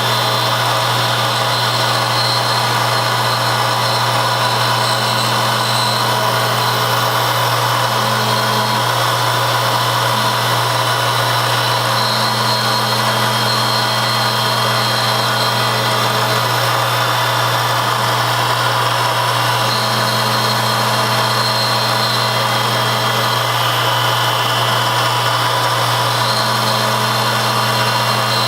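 Metalworking machine tool running steadily: a constant low hum with many steady tones above it. A slightly higher hum comes and goes in stretches of a few seconds, four times.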